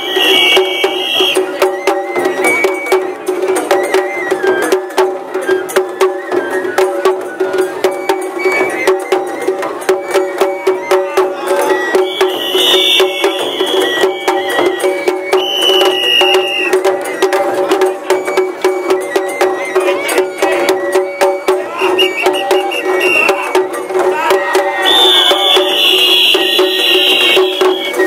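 Japanese festival float music (matsuri bayashi): taiko drums beaten in a fast, continuous rhythm, with held flute notes. A high flute note comes and goes several times over the drumming.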